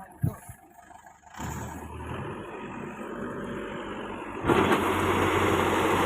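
Rice harvesting machine's engine running, coming in about a second and a half in and growing much louder from about four and a half seconds, as if revving up or coming close. A short knock is heard just after the start.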